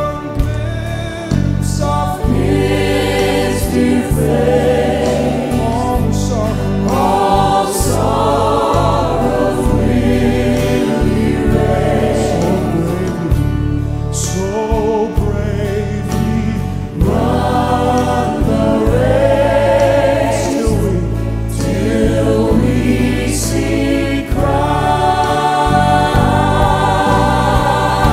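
Live gospel song: a male soloist and a choir singing into microphones over steady instrumental backing.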